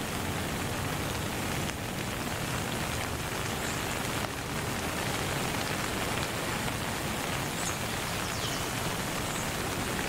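Steady rain falling, an even hiss, with a few faint high chirps over it.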